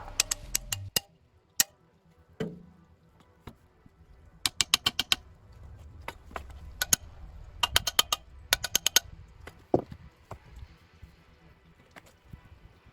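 Quick runs of sharp, light taps or clicks, each run about ten a second, with a couple of duller single knocks between them.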